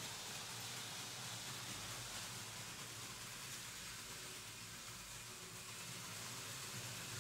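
Märklin H0 model trains rolling over stamped-steel M-track: a steady rumble with a low hum, no distinct clicks or changes.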